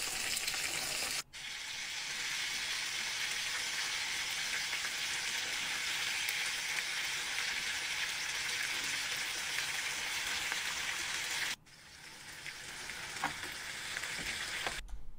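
Sausages and sweetcorn shallow-frying in a pan of oil, a steady sizzling hiss. The sizzle cuts off abruptly twice, about a second in and again near twelve seconds, and after the second break it builds back gradually.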